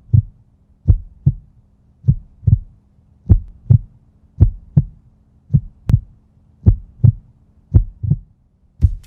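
Heartbeat sound: low lub-dub double thumps, one pair about every second, over a faint steady hum.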